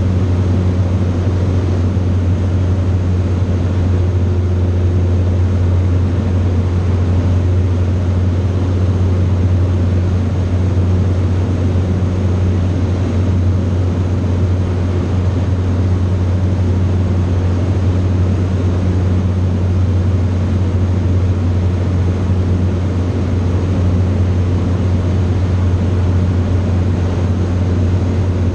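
Light aircraft's piston engine and propeller droning steadily in level flight, heard inside the cockpit as a loud, unchanging low hum.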